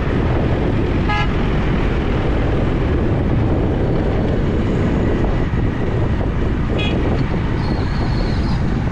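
Motorcycle on the move: a steady low rumble of engine and wind on the microphone, with two short horn toots, one about a second in and one near seven seconds.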